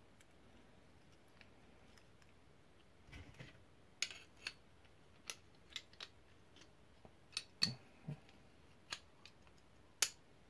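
Flat cone wrench clicking and clinking against the axle cone and locknut of a Shimano 3CC three-speed bicycle hub as it is fitted and turned. About a dozen short, sharp metal clicks come at uneven intervals from about four seconds in, the loudest one near the end.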